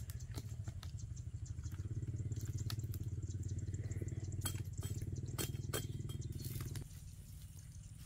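Machete blade striking and splitting a green stick, a few sharp cracks over a steady low hum of a small engine running. The hum cuts off shortly before the end.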